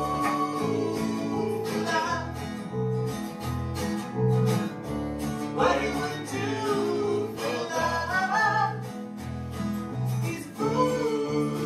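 Two acoustic guitars strummed in a steady rhythm while a woman and a man sing a song together.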